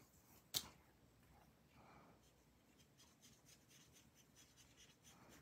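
Faint scratching of a felt-tip marker colouring on cardstock, with one sharp click about half a second in.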